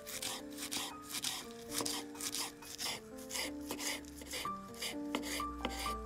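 Kitchen knife rapidly chopping fresh parsley on a wooden cutting board, about four strokes a second, over background music.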